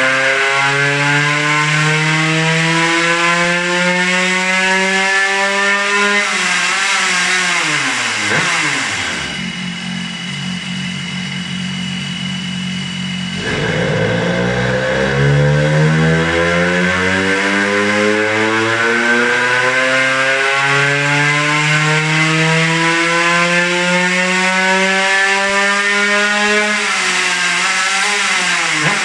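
Tuned Suzuki DS80 two-stroke single-cylinder engine on a dynamometer, under load with a new exhaust pipe: its revs climb steadily for about six seconds, fall back to a short idle, then climb again in a longer pull from about halfway through and drop off near the end.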